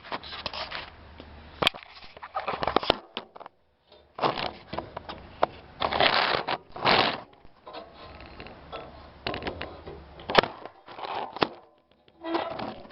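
Irregular handling noise: rustling and scraping bursts with a few sharp clicks and knocks, as of tools, parts or the camera being moved about.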